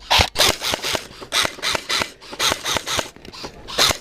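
Airsoft rifle firing a rapid string of single shots, about four a second, each a short sharp snap of the gun's mechanism.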